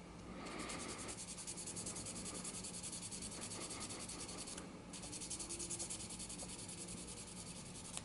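Hand sanding of an oxidised vulcanite (hard rubber) pipe stem with a small piece of fine sandpaper: rapid, even back-and-forth rasping strokes. There is a short break a little past the middle. The sanding takes the oxidation off the stem to bring it back to black.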